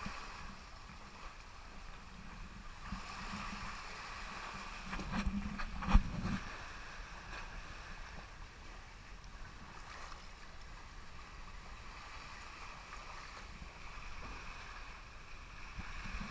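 Shallow sea water washing and lapping over rocks along the shoreline, steady throughout, with a single sharp knock about six seconds in.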